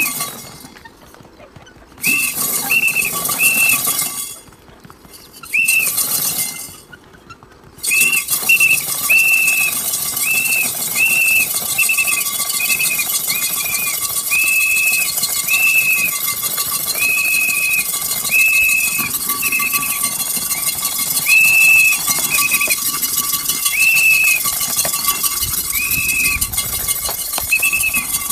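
A series of short, high whistle notes, about one or two a second, over a steady hiss. The notes break off twice in the first few seconds, then carry on without a pause.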